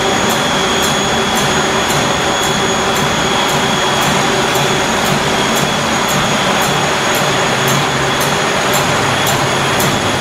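Two-colour dog chew extrusion production line running: a loud, steady machinery noise with a steady high whine, and a light regular tick about two to three times a second.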